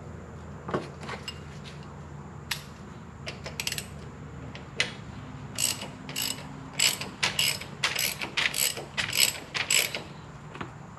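Ratchet wrench clicking as the oil filter housing cap is tightened: a few scattered clicks, then from about halfway a run of clicks at about three or four a second.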